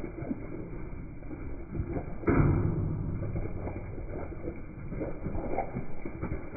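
A flock of Zwartbles sheep running close past on wet grass and mud, hooves thudding and pattering, with one heavy thud about two seconds in.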